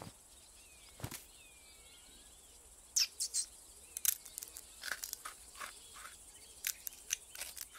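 Summer field ambience of a steady insect and cricket hiss with a few faint bird chirps. From about three seconds in comes an irregular run of small, crisp clicks: a mouse nibbling something held in its paws.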